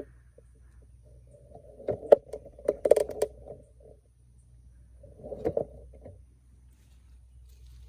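Bumps, clicks and rustling from handling: a cluster of sharp clicks and knocks about two to three seconds in, and a softer cluster about five to six seconds in.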